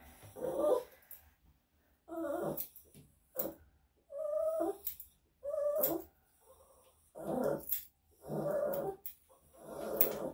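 Bichon/Shih Tzu mix dog giving about eight short whining grumbles, each under a second, in protest at having her foot held and trimmed. Light clicks of grooming scissors between them.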